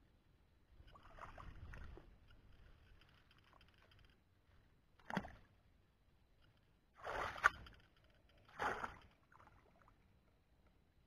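Water splashing as a person works in shallow, muddy ditch water: three short splashes a few seconds in, the middle one the longest and loudest with a sharp knock at its peak.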